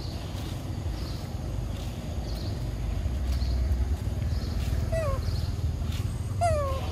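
Two short squeaky animal calls near the end, each falling in pitch, about a second and a half apart, over a steady low rumble and faint regular high chirps.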